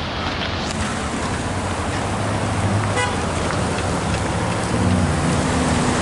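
Cars and a pickup truck driving over a railroad grade crossing on wet pavement, with tyre noise and engine hum. A very short horn toot comes about three seconds in.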